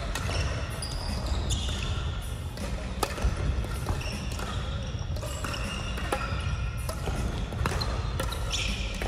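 Sports-hall play sounds: sharp crossminton racket hits scattered through, and short high squeaks of shoes on the gym floor. Under them runs the steady echoing hubbub of the hall.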